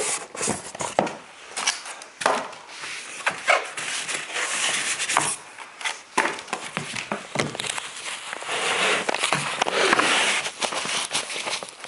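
Packaging being handled during unboxing: uneven rustling and crinkling with scattered knocks and clicks.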